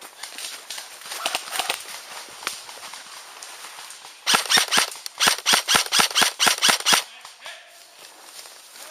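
An airsoft gun firing a rapid string of about fifteen sharp shots over nearly three seconds, starting about halfway through, with faint scattered shots and rustling before it.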